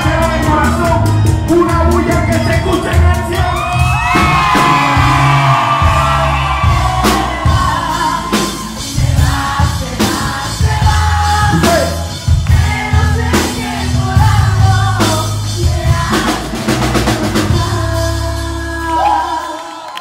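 Live bachata band playing loudly: a man singing over bass, drums and percussion, with shouts from the stage. The music stops just before the end.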